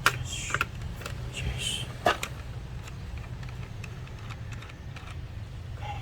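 Sharp clicks and short scrapes of small tools and plastic parts being handled, loudest right at the start and about two seconds in, over a steady low hum.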